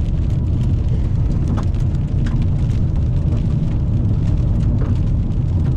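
Car driving in heavy rain: a steady low rumble of road and engine, with scattered sharp ticks of raindrops striking the car.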